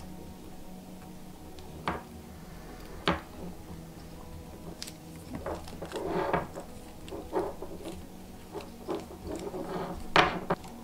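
Hands handling a car-stereo wiring harness: wires rustling and plastic plug connectors clicking as they are pushed together, with a few sharp clicks, the loudest about two, three and ten seconds in.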